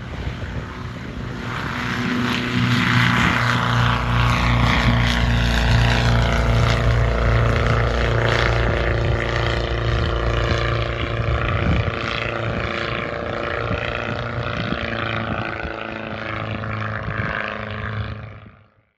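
The propeller engine of an 80% scale Fokker D.VII replica biplane (a Valley Engineering engine with reduction drive) running at full power on takeoff and climb. It grows louder as the plane passes, is loudest about a third of the way in, and then slowly falls away as it climbs off.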